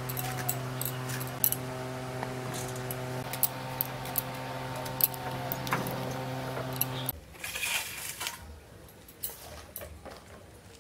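Green chilies being sliced on a boti, an upright kitchen blade: a string of small, sharp cutting clicks and snips. A steady hum runs beneath them and cuts off suddenly about two-thirds of the way through, after which fainter scattered clicks follow.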